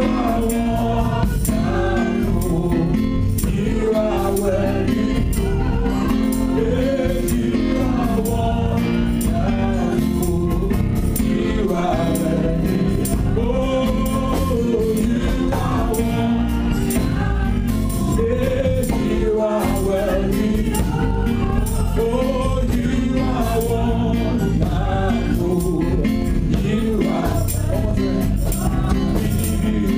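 Live gospel praise song: a worship leader sings into a microphone, the congregation sings along, and a band with a drum kit keeps a steady beat.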